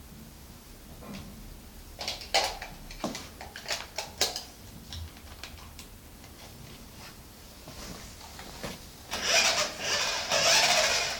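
A run of light clicks and knocks, then about nine seconds in a loud whirring rush in two bursts, like a small electric RC car motor and wheels spinning.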